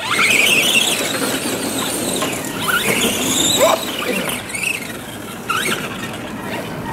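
Radio-controlled trucks driving on grass, their motors whining in high pitch glides that rise and fall as they speed up and slow down, over a steady rush of noise.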